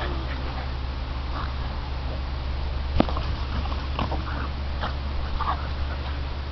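Two dogs play-fighting over a ball, with short growls and grunts scattered throughout. There is one sharp knock about three seconds in, over a steady low hum.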